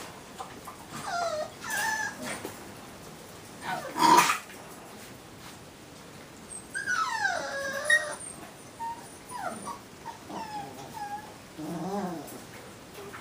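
A litter of young puppies yipping, whining and play-growling as they wrestle, in short squeaky calls that slide in pitch. One louder cry comes about four seconds in, and a low rattling growl near the end.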